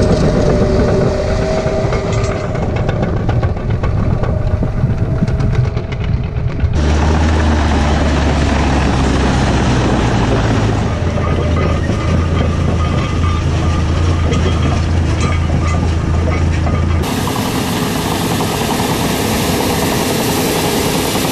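Caterpillar D11R bulldozer's V8 diesel engine running as the crawler drives across snow, heard close up. The sound changes abruptly about 7 and 17 seconds in, with a strong low hum in the middle stretch.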